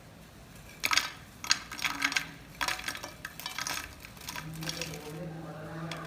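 Crisp fried potato fries dropped onto a ceramic plate, a quick run of light clattering taps in several clusters. A steady low tone comes in after about four seconds.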